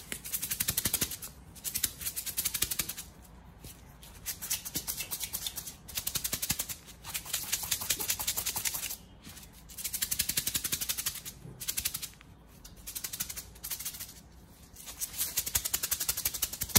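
Millet grains rattling inside a bottle as it is shaken hard, to coat the grains with liquor for wine-millet bait. The rattle comes in repeated spells of rapid shaking, each a second or two long, with short pauses between them.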